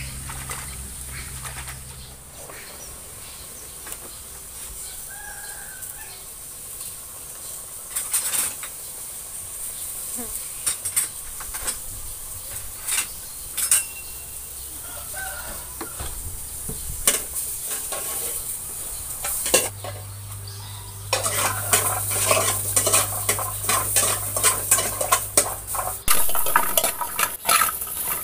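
Scattered clinks of dishes and pans, then about two-thirds of the way through a metal ladle starts scraping and stirring sliced shallots and red chillies frying in a wok, with sizzling under the rapid scrapes.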